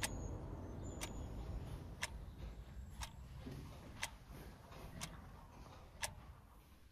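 Clock ticking steadily, once a second, over a low rumble that fades.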